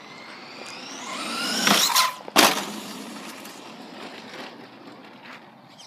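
RC car motor whining and rising in pitch as the car speeds up for about two seconds, then a sharp knock about two and a half seconds in, after which the whine fades away.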